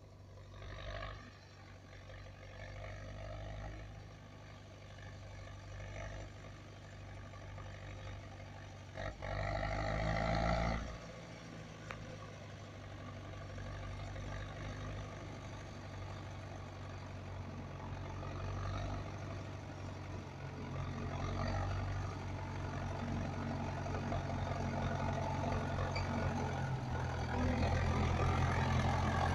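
Zetor Super 50 tractor's diesel engine running steadily as the tractor drives toward the microphone, growing louder as it nears. A brief louder rush of noise about nine to eleven seconds in.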